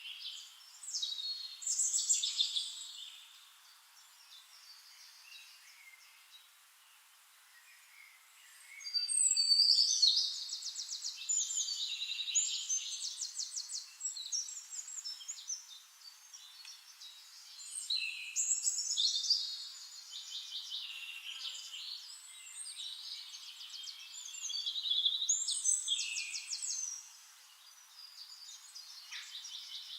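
Songbirds singing high-pitched phrases of rapid trilled notes, in bouts with a quieter stretch a few seconds in.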